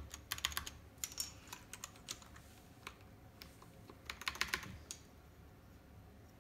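Mechanical keyboard keys clicking irregularly as plastic PBT keycaps are pushed onto the switches and pressed down, with a quick run of clicks about four seconds in.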